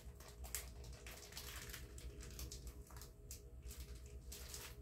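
Faint crinkling and rustling of a plastic freezer bag as it is rolled around a raw chicken breast to press the air out, in many small irregular crackles. A faint steady hum runs underneath.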